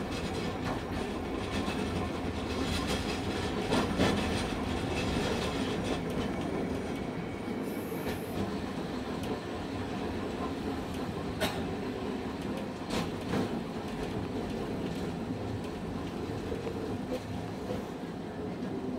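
Hankai Tramway streetcar running along the rails, heard from inside the car: steady motor and wheel noise with a few sharp clacks, about four, eleven and thirteen seconds in.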